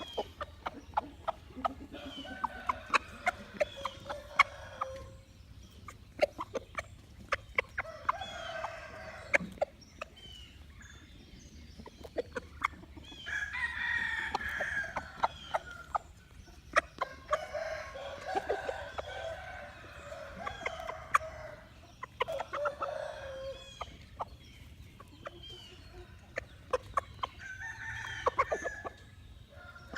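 Chickens clucking and a rooster crowing in stretches, among many sharp clicks.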